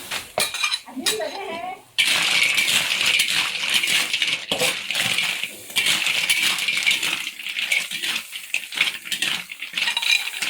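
River snails in their shells being stir-fried in a hot wok: shells clattering and rattling against the metal over a steady sizzle, starting suddenly about two seconds in.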